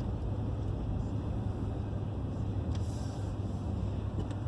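Steady low rumble of a car, with no sharp events.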